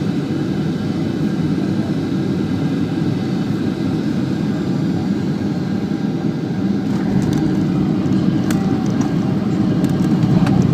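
Steady noise of a Boeing 737-800 jet airliner coming in to land. A deeper rumble joins about seven seconds in, the sound grows a little louder, and a few sharp clicks come near the end.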